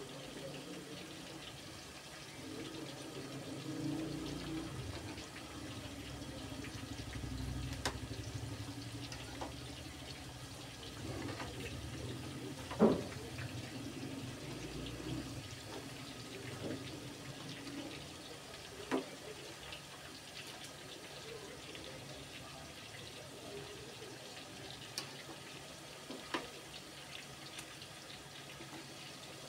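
Chicken pakoras deep-frying in hot oil in a metal karahi, a steady sizzle and bubbling. A slotted metal spatula stirring them clinks against the pan now and then, loudest about 13 seconds in.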